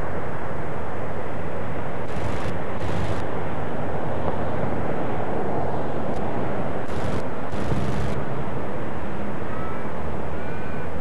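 WAGR Pm-class steam locomotive working its passenger train around a curve: a steady, dense run of working noise, broken by four brief bursts of hiss in two pairs. A bird calls twice near the end.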